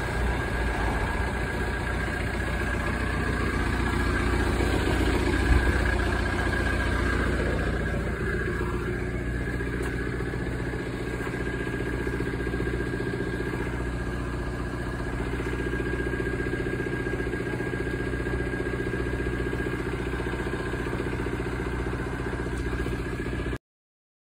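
2008 Ford Transit van's engine idling steadily after a cold start, with a constant faint whine over it and a single short knock about five seconds in. The sound stops abruptly just before the end.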